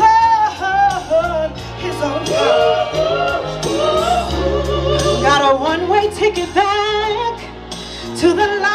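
A woman singing a soul ballad into a microphone, amplified through PA speakers, her voice sliding and bending between notes in runs over an accompaniment of sustained low notes.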